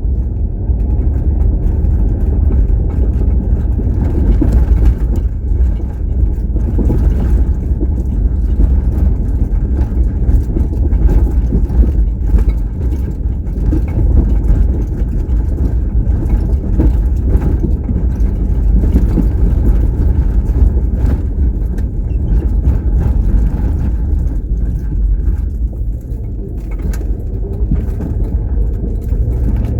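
A car on the road: a steady, loud low rumble of engine and tyres.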